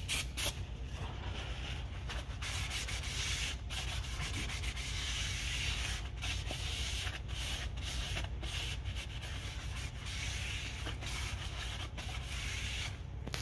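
Cloth rubbing across the face of a new cross-drilled brake disc in repeated wiping strokes with short breaks, cleaning the disc's oily anti-rust coating off with brake cleaner.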